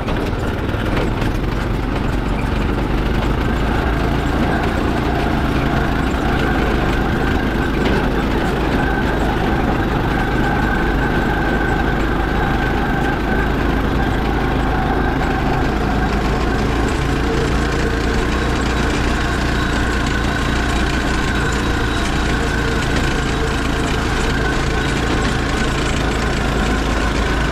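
Off-road go-kart's small engine running steadily as the kart is driven along a dirt trail.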